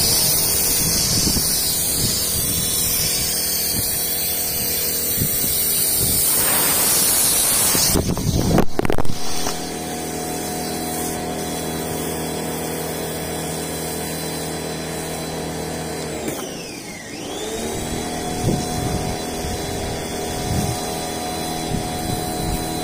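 Sun Joe electric pressure washer running, with the hiss of spray through the foam cannon for about the first eight seconds. The spray then stops while the motor's hum carries on, winding down in pitch about 16 seconds in and starting back up a second later.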